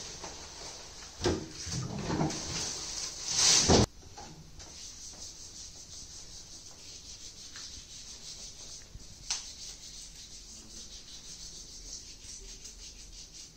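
Rustling and handling of a removed protective coverall as it is bundled and put into a pedal waste bin. The loudest clatter comes about three and a half seconds in and cuts off suddenly, followed by a low steady hiss with a single click near the middle.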